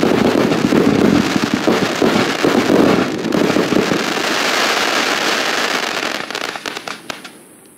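A 100-shot, 30mm firework cake assortment firing rapid shots and bursts, followed by the crackling of its silver crackler tips. The crackle thins to scattered pops and fades out near the end.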